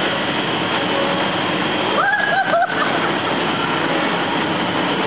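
Steady rushing din of the air blowers that keep an inflatable slide up, mixed with indoor play-hall noise. About two seconds in, a short high-pitched voice cries out, its pitch bending up and down.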